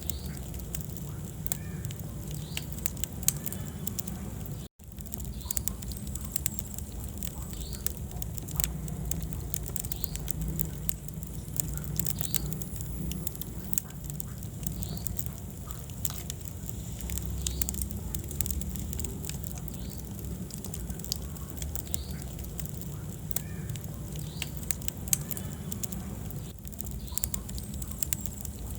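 Wood fire burning in a fireplace: a steady low rumble of flames with frequent small crackles and pops. The sound cuts out for an instant about five seconds in.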